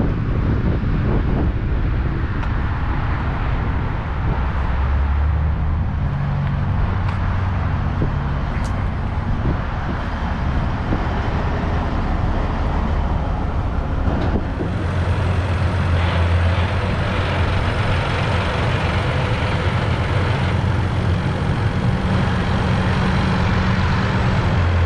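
Heavy diesel engine running steadily, growing louder and fuller about halfway through.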